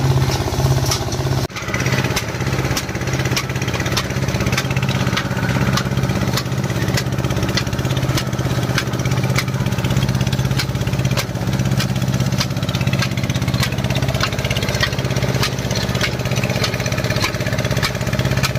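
Small stationary engine running steadily, driving a grain thresher through long flat belts as barley straw is fed into the threshing drum. The sound dips briefly about a second and a half in.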